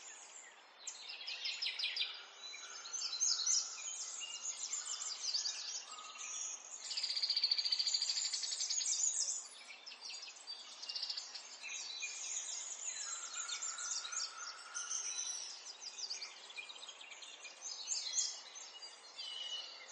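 Birdsong: a dense chorus of small birds chirping and trilling, with a long rapid trill, the loudest part, about seven to nine seconds in.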